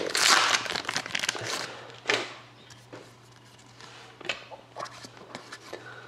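Foil wrapper of a Panini hockey card pack crinkling and tearing as it is opened. It is loud for the first second and a half, crinkles once more about two seconds in, then gives way to soft scattered ticks.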